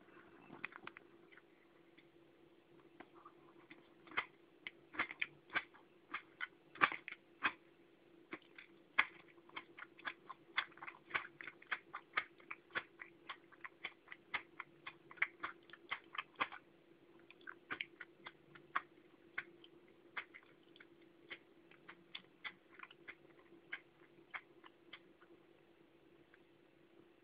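A ceramic mug swinging on its hook, its handle clicking against the hook in faint, irregular sharp ticks about two to three times a second. The clicks thin out toward the end. A steady low hum runs underneath.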